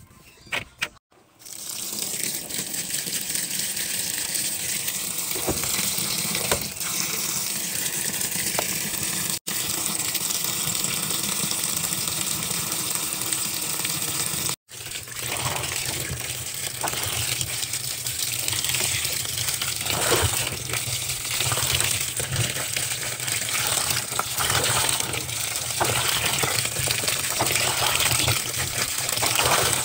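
Water gushing from the fill inlet into a top-loading washing machine's drum onto the laundry. It starts about a second and a half in and runs steadily, cutting out for an instant twice. In the second half a hand sloshes and splashes the wet clothes in the water.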